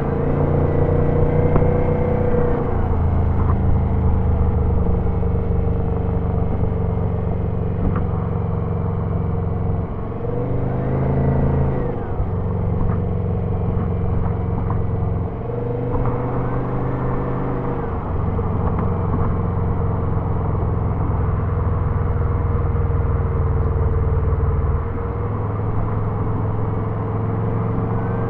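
Twin-turbocharged Subaru engine pulling at road speed, its note shifting several times with the throttle. A faint turbo whistle rises and falls four times over the stretch, the last near the end.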